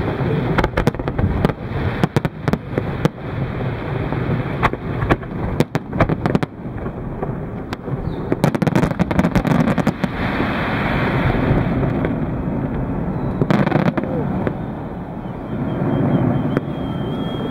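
Aerial fireworks shells bursting: a rapid string of sharp bangs and crackles over a continuous rumble, densest in the first few seconds, with one more big bang a little after the middle.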